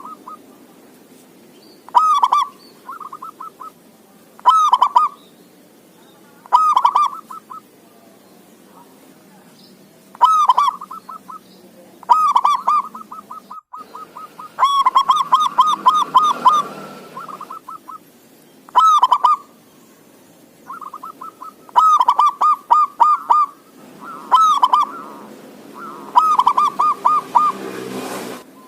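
Male zebra dove (perkutut) singing: over a dozen bouts of rapid, pulsing coos. Most bouts last about a second, and a couple run on for two or three seconds.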